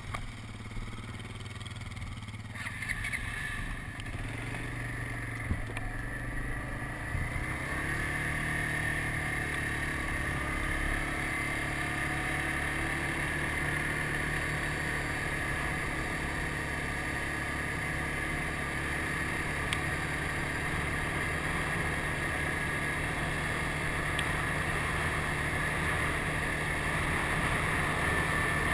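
ATV engine running under way on a dirt road, its steady note growing louder over the first several seconds and then holding, with a hiss of wind and tyre noise over it.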